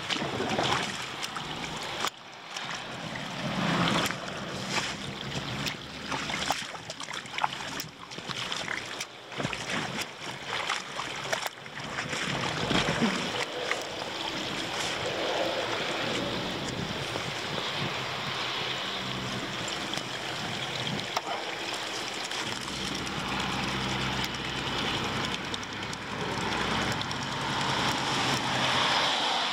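Floodwater splashing and running into a roadside drain as leaves are cleared from it, with sharp splashes and knocks through the first half. In the last several seconds a road vehicle's engine comes in and grows louder.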